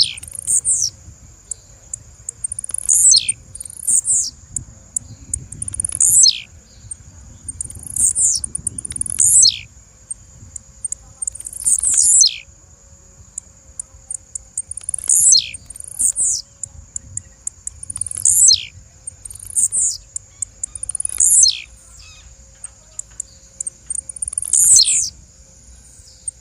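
Blue-black grassquit (tiziu) calling over and over, about every three seconds. Each call is a few quick high ticks followed by a sharp falling note.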